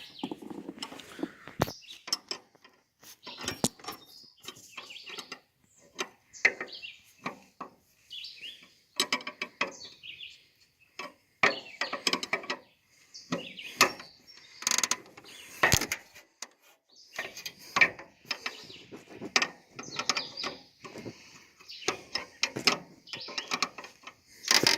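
Ratchet wrench clicking in bursts, worked back and forth on a nut or bolt on a lawn tractor's front wheel/steering, with short pauses between strokes: the fastener is stuck and won't come loose.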